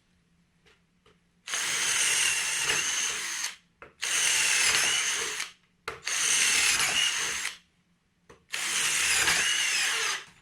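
Cordless power drill running in four short bursts of about two seconds each, trigger pulled and released between them.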